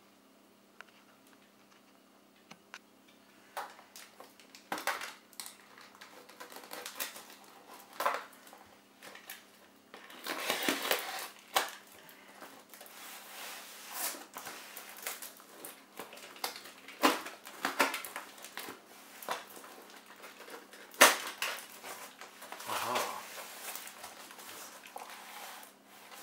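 Hands tearing open a parcel wrapped in packing tape and plastic film, then opening the cardboard box: irregular crinkling, ripping and rustling of plastic and cardboard with scattered sharp clicks and snaps, the sharpest one late on. The first couple of seconds are nearly quiet.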